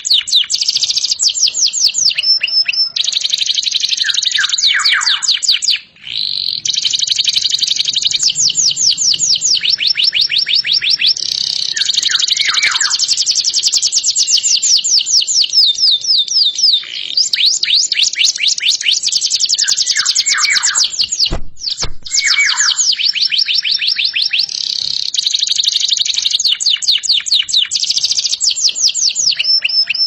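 Yellow domestic canary singing a long, nearly unbroken song of fast high trills, each phrase a rapid run of repeated notes, with whistled notes sweeping downward between phrases. There is a short break about six seconds in, and two sharp clicks a little past twenty seconds.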